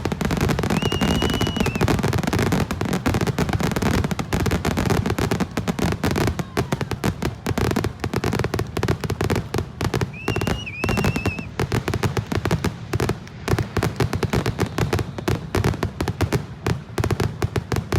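Fireworks going off in a dense, rapid crackle of pops, with a high whistling firework about a second in and another around ten seconds in.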